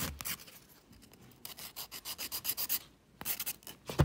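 Hand nail file rasping over a gel nail in quick short strokes, in runs with a brief pause, filing down the thickness of the gel.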